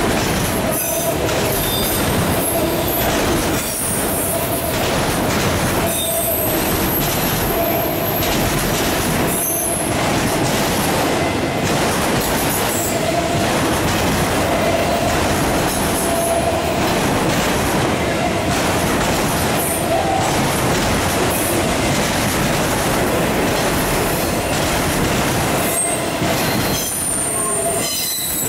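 Freight train's autorack cars rolling past: a loud, steady roar of steel wheels on rail, with thin squealing wheel tones coming and going over it.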